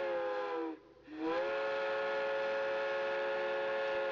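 Multi-note chime steam locomotive whistle: a blast whose pitch sags as it dies away less than a second in, then after a short break a second, long steady blast.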